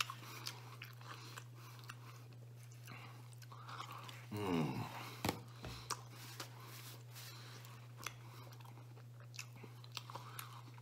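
A man chewing a mouthful of pizza, with soft wet mouth clicks and smacks. A brief low vocal sound, falling in pitch, comes about four and a half seconds in. A steady low hum lies underneath.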